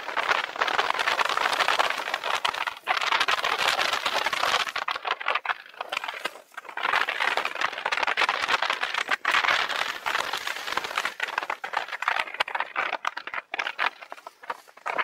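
Bicycle riding along a road, heard from a camera mounted on the bike: a dense rattling, crackling noise of tyres on tarmac and the shaking mount, mixed with wind. It swells and dips every few seconds.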